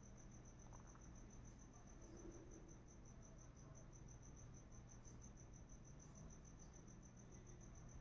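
A cricket chirping faintly and steadily: an even, high-pitched pulsing of about six chirps a second.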